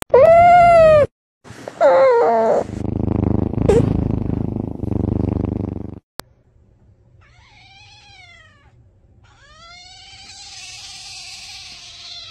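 Cat sounds: two meows, then a few seconds of pulsing, rumbling purring. After a break, another cat gives a short meow and then a long, drawn-out meow.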